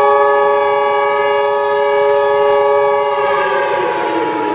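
Emergency alert attention tone of a simulated Emergency Action Notification: a loud, steady chord of several pitches that starts abruptly, with a rougher, slightly falling layer fading in about three seconds in.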